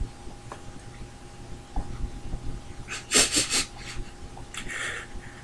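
A man's shaky breathing while upset: a sharp run of sniffling, gasping breaths about three seconds in, and a softer breath near the end.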